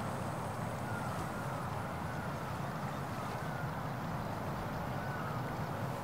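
Steady outdoor background rumble, with a few faint short high chirps over it.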